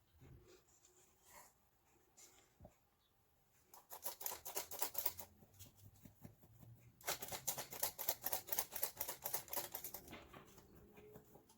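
Kitchen utensil rattling rapidly against a mixing bowl of cake batter, in two bursts of about ten clicks a second: a short one, then a longer one about three seconds later.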